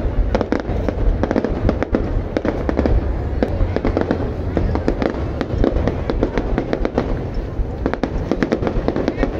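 Fireworks display going off without pause: dense, rapid crackling over a steady low rumble.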